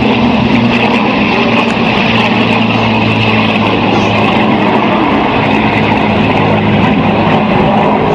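Aircraft engine running steadily: a loud, even drone with a low hum under it.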